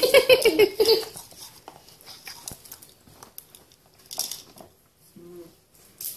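A Pomsky puppy gives a high whining cry for about a second at the start, then scattered light clicks and taps of puppies' claws and paws scrabbling on a hardwood floor.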